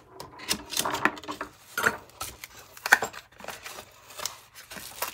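Small cardboard box being handled and opened by hand: irregular taps, scrapes and sharp clicks of the carton and its flap, the loudest click about three seconds in.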